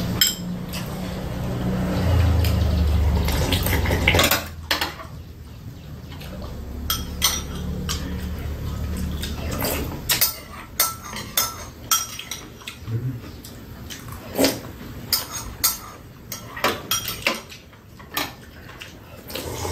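Metal spoons clinking and scraping against ceramic soup bowls during a meal, in many short, irregular clicks. A low rumble runs under the first half and then fades.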